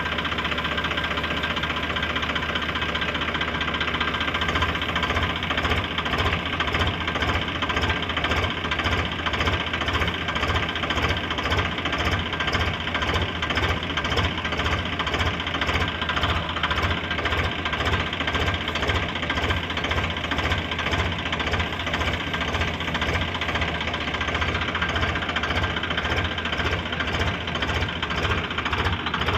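Ace 550 DI tractor's diesel engine running, with the tractor stuck in deep mud. From about four seconds in the engine takes on a regular throbbing pulse.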